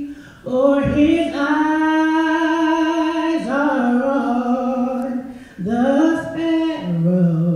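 A man singing solo a cappella in long held phrases, with two short breaks for breath. The melody steps down to a lower note about seven seconds in.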